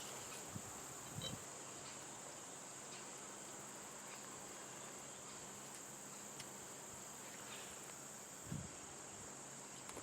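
Outdoor insect chorus of crickets, a steady, even, high-pitched trill that does not let up, with a couple of faint low knocks about a second in and near the end.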